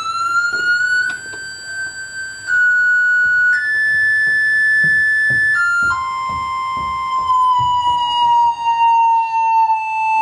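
Steady electronic test tone played through a small guitar amplifier's 6x9 speaker driving a Chladni plate, moved through different pitches to find the plate's standing-wave frequencies. It slides up about a second in, steps higher a few times, then drops around six seconds in and glides slowly lower. Faint irregular ticks sound underneath.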